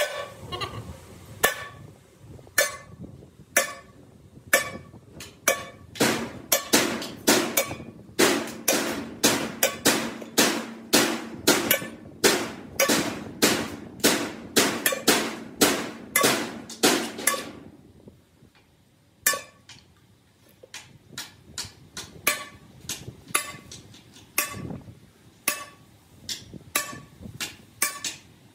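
Hammer striking metal, each blow with a short ringing tone. Slower blows at first, then a steady run of about two heavy blows a second, a short pause, then lighter, quicker strikes.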